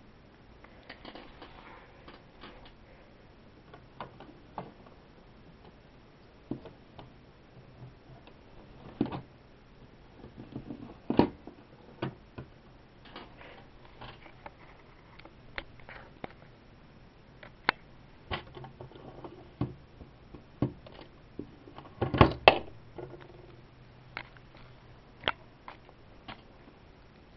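Irregular sharp clicks and light knocks of handling noise from a handheld camera moving over the scene, some of them loud, with a denser flurry about three-quarters of the way through.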